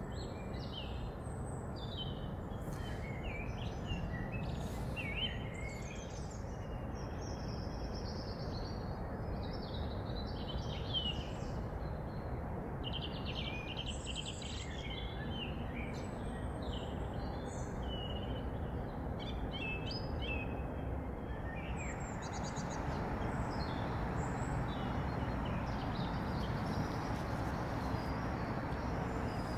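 Small birds chirping and twittering on and off over a steady low background hum of outdoor noise.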